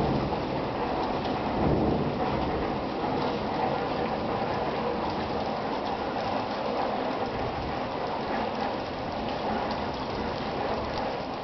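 Steady rain falling, with a low rumble of thunder swelling about two seconds in.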